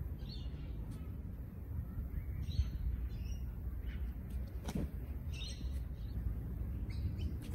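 Birds calling: short chirps at scattered moments, over a steady low rumble. There is one sharp click a little before five seconds in.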